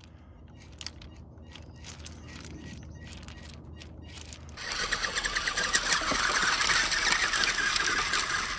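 Small RC rock bouncer driven by twin Mofo RC Big Block electric motors, crawling over loose beach pebbles: scattered clicks of stones at first, then about halfway in a much louder motor whine mixed with the crunch and clatter of pebbles under the tyres as it drives harder.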